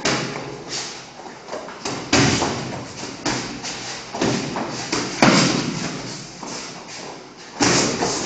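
Sparring blows landing: gloved punches and kicks striking gloves and bodies, a string of irregular thuds, the loudest about two seconds in, just past five seconds and near the end.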